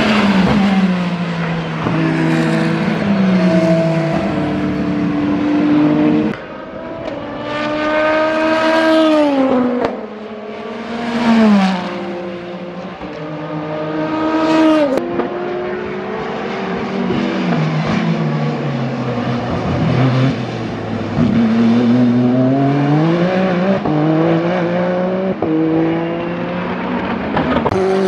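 Race car engines passing at speed, the Peugeot 9X8 Le Mans Hypercar's 2.6-litre twin-turbo V6 chief among them. The engine notes drop in steps through downshifts under braking and climb again on acceleration, with several passes one after another.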